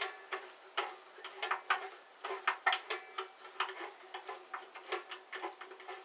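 Small Allen key turning a screw in the sheet-metal upper door of a 9-inch Mastercraft bandsaw as it is tightened: a run of irregular light metallic clicks and ticks, several a second.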